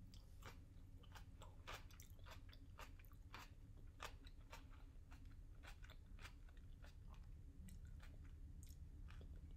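Faint chewing of crunchy kimchi: a string of small, crisp crackles and crunches, irregular and close together.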